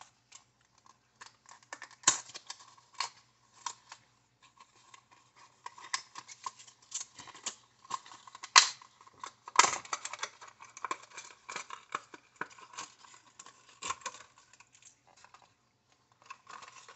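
Clear hard-plastic lure package crackling and clicking as it is handled and turned in the hands, with a few sharper snaps among the irregular clicks.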